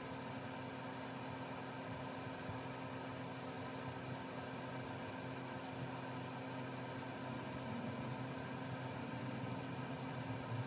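Steady low machine hum with an even hiss, unchanging throughout and slightly louder near the end.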